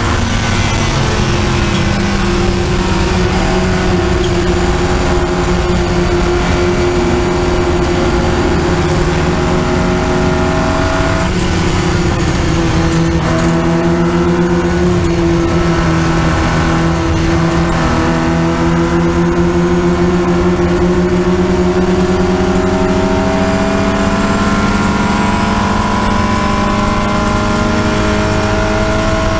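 Triumph Spitfire race car's four-cylinder engine, heard onboard at racing speed. Its pitch sinks slowly through the first half, breaks briefly a few times around the middle, then climbs steadily through the last ten seconds as the revs build.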